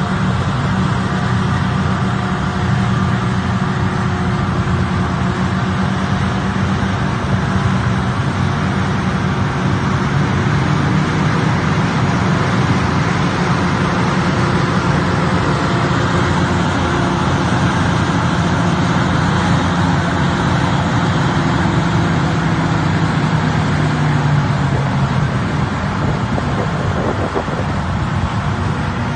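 Larue D97 single-stage snow blowers on Caterpillar wheel loaders working flat out, a loud, steady diesel drone with the rush of snow being thrown. The low engine tone eases off near the end.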